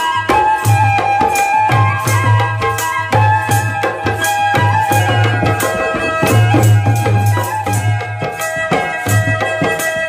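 Background music with percussion and a steady beat over held melodic tones.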